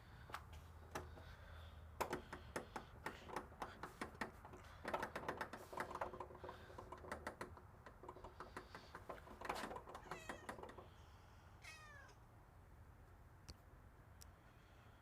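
Runs of quick, sharp clicks and scratching for several seconds, then a domestic cat gives one short meow that falls in pitch near the end.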